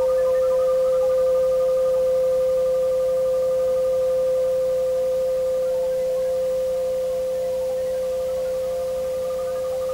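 Steady pure electronic tone from a laboratory tone generator: one unchanging mid-pitched note, a sine wave, that slowly grows a little quieter toward the end.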